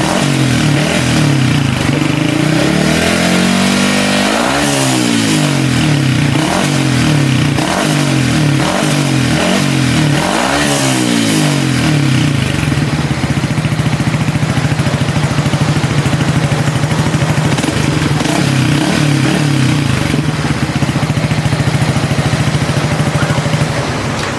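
Yamaha XSR155's single-cylinder engine through a Yoshimura Straight Cyclone full exhaust system, blipped up and down in a string of quick revs, then held steady at high revs from about halfway through. The sound falls away near the end.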